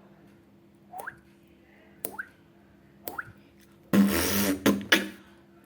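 Beatboxer imitating water drops with his mouth: three single 'plop' drops about a second apart, each a quick rising pitch. About four seconds in comes a loud hissing burst lasting about a second, ending in a couple of sharp clicks.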